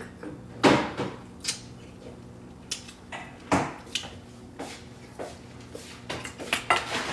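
Scattered clinks and knocks of cutlery against dishes while eating, coming in quick succession near the end.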